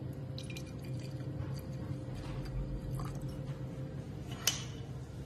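Brandy poured in a thin stream into a glass snifter, a faint trickling with small ticks, over a steady low hum. A sharp click comes about four and a half seconds in.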